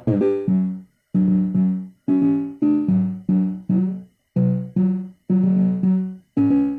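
Instrumental music: a riff of short, quickly fading pitched notes, about two a second, in phrases broken by brief silences.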